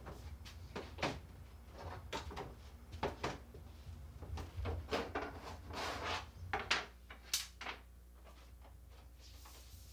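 Irregular wooden knocks, clatters and short scrapes as spacer sticks are slid out from under a sheet of plastic laminate and the laminate is pressed down onto the glued counter top. The knocks thin out near the end.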